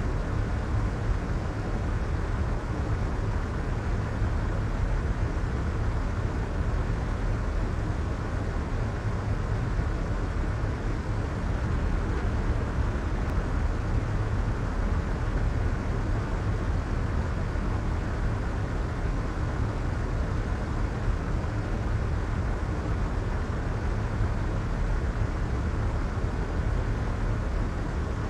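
Steady soft white noise: an even, muffled rushing with most of its weight in the low end and little brightness on top.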